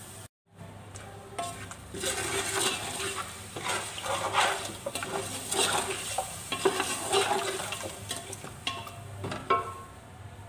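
Chicken pieces frying in oil in a metal pot, stirred and scraped with a spatula in irregular strokes, with a steady sizzle and the spatula knocking against the pot. This is the browning (bhuna) stage, with the meat cooked in oil and ground spice masala.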